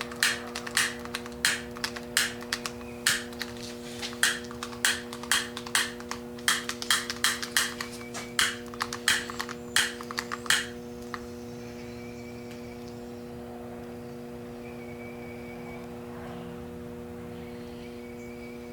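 A quick, irregular series of sharp clicks, about two or three a second, that stop about ten seconds in, over a steady electrical hum.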